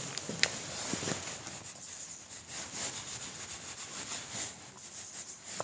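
Faint rubbing and rustling from a person moving at a whiteboard with a marker in hand, with a few small scrapes and clicks over a steady hiss.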